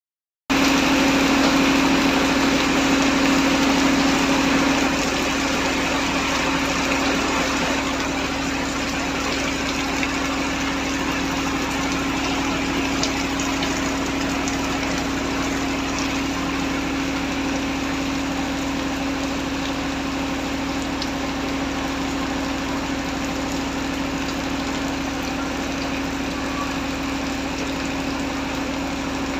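Heavy rain falling steadily, with a constant low hum running underneath it.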